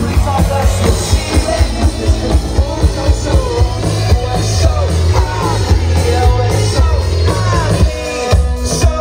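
Loud rock music with singing over a steady, heavy beat.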